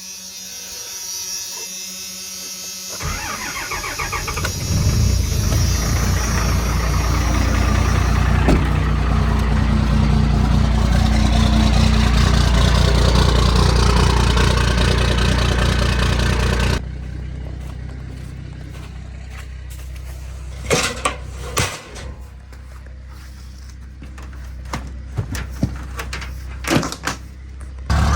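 An engine cranks about three seconds in, catches and runs steadily and loudly; about seventeen seconds in the sound cuts to a quieter low hum with scattered knocks and clicks.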